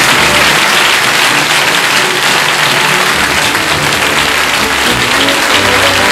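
Audience applauding steadily over closing music, sustained notes playing beneath the clapping.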